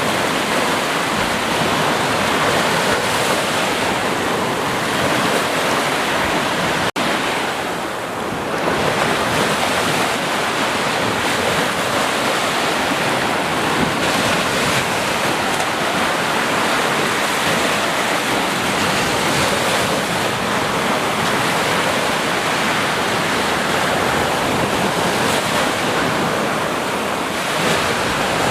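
Ocean surf: a steady wash of waves, with a momentary cut-out in the sound about seven seconds in.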